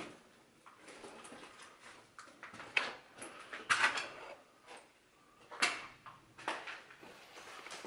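Footsteps crunching and scuffing on a debris-strewn floor in an empty, echoey room: a few irregular steps, loudest around the middle.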